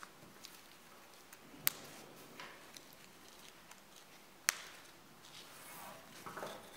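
Two sharp clicks about three seconds apart as press-stud buttons on a fabric leg cuff snap into place, with small ticks and rustling as the cuff and its straps are handled.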